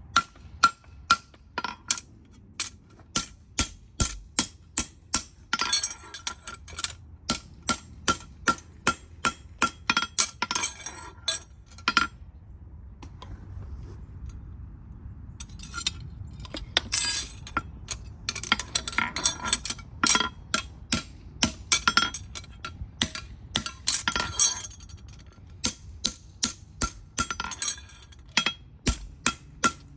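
Farrier's hand tools working on a hoof: long runs of sharp, clinking clicks, about two or three a second, with a pause of a few seconds about twelve seconds in.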